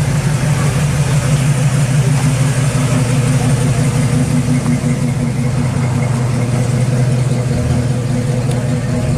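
Engine of a customized classic Chevrolet pickup running steadily at low revs through dual exhausts as the truck rolls past at walking pace.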